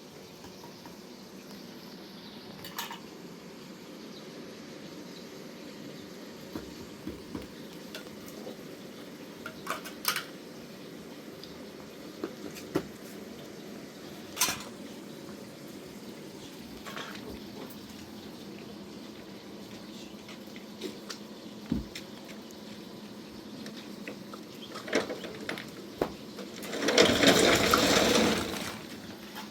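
Dishes and utensils clinking now and then over a steady low hiss, with about two seconds of pouring or splashing water near the end.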